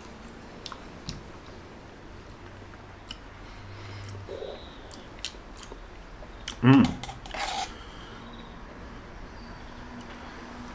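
A person eating soup: a few light clicks of a titanium spoon against a titanium mug, and chewing. A short vocal sound comes about two-thirds of the way through.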